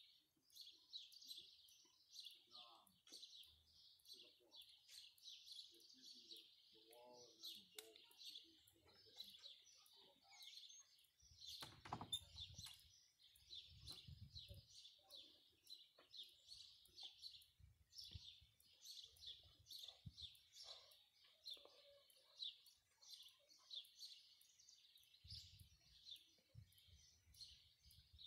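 Birds chirping steadily, short high chirps repeating at about two a second. A single sharp knock sounds about twelve seconds in, with a few soft low thuds after it and again near the end.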